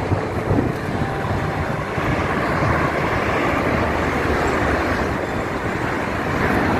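Road traffic passing on a city street: a steady rush of vehicles that swells slightly a couple of seconds in.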